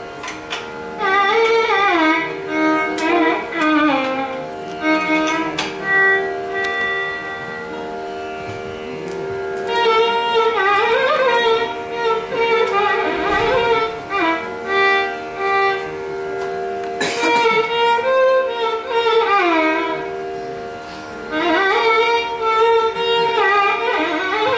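Carnatic violin playing an unaccompanied raga alapana, in phrases of sliding, heavily ornamented notes, over a steady electronic tanpura drone.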